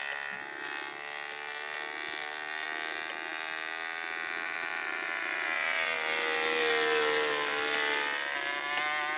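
Model airplane's glow-fuel engine running in flight at about half throttle, a steady buzzing drone that swells and slides in pitch as the plane passes close around seven seconds in. The engine has been prone to flaming out at low throttle.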